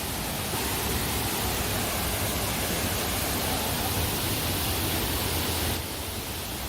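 Steady rushing roar of a waterfall on the River Mellte, a dense even hiss with no breaks, becoming a little quieter near the end.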